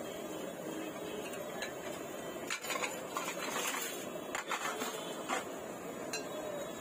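Metal spatula scraping and tapping on a dosa griddle, with several sharp clicks and clatters of steel utensils in the middle, over a steady hum of street-stall noise.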